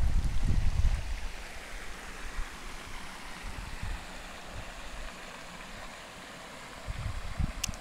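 Shallow moorland stream running over stones and across a cobbled ford: a steady rushing of water. Wind buffets the microphone with a low rumble for about the first second and again shortly before the end.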